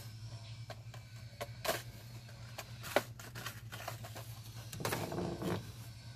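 Scattered light clicks and rattles of a drill bit and small tools being handled, with a short rustle about five seconds in, over a faint steady low hum.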